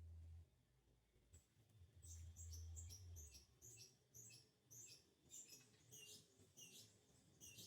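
A bird singing faintly, a steady run of high, quickly falling chirps at about two a second that begins about two seconds in. A low rumble is heard at the very start and again just as the song begins.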